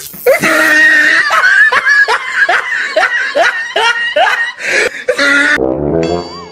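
A man laughing loudly in a long, even run of ha-ha bursts, about two to three a second. Near the end it cuts sharply to brass music.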